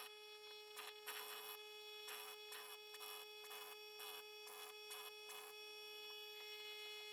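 A faint, steady electrical-sounding hum, with scattered light clicks and knocks for the first five seconds or so.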